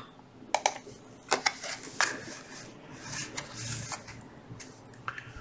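Pokémon trading cards being slid off a stack and handled: a few light clicks in the first two seconds, then soft rustling.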